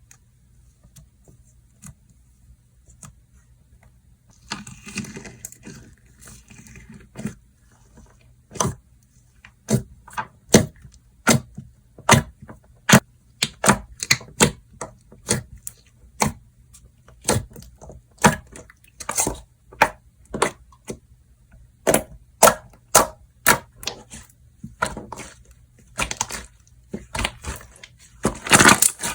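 Slime being pressed and squeezed by hand, giving a run of sharp clicking pops, about one or two a second and denser near the end. It starts with a soft crinkly rustle about four seconds in.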